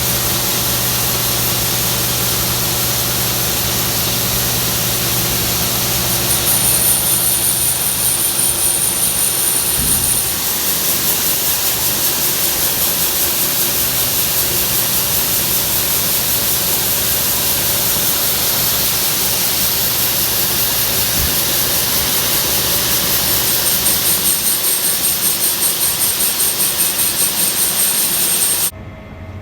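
John Deere S780 track combine running steadily during soybean harvest: a loud, even rush over a steady engine hum. A thin high whine comes in for a few seconds, then again near the end, and the sound drops suddenly to a much quieter level just before the end.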